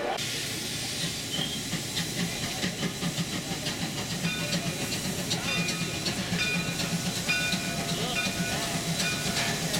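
Narrow-gauge steam locomotive standing with steam hissing steadily, over a low pulsing throb from the engine.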